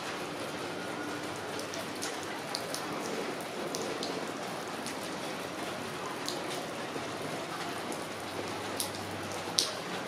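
Steady rain falling, an even hiss with scattered sharp ticks of individual drops, one louder drip near the end.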